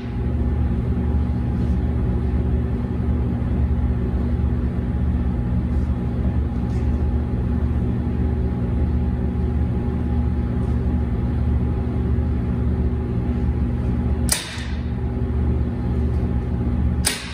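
A steady, low mechanical hum, with two sharp snaps near the end from a staple gun fastening velvet upholstery fabric to a padded board.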